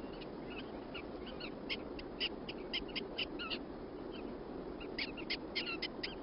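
Prairie dogs giving short, sharp alarm chirps in quick irregular runs, with a brief lull midway, over a steady background hiss.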